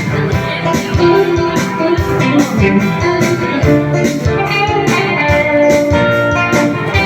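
Instrumental music: guitar playing over a steady beat, with no singing.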